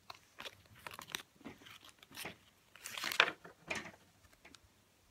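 Trading cards being slid and flicked through by hand, a series of short papery swishes and rustles, the loudest about three seconds in.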